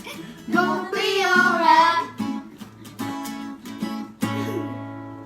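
A voice sings a last line over strummed acoustic guitar. The voice stops about two seconds in, the guitar keeps strumming, and a final chord is struck about four seconds in and left ringing.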